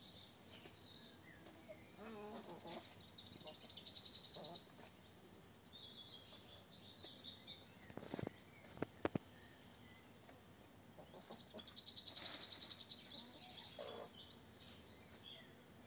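Backyard hens clucking softly while they feed on Swiss chard, with a high, fast bird trill three times in the background and a couple of sharp clicks about halfway through.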